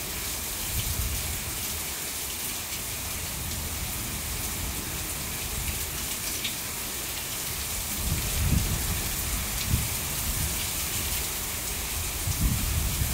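Heavy rain pouring down steadily in a thunderstorm, with low rumbles swelling up about eight seconds in and again near the end.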